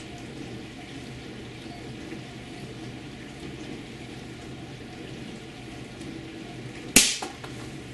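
Steady background hiss, then a single sharp shot from an Air Arms S410 .22 PCP air rifle about seven seconds in, with a brief ring.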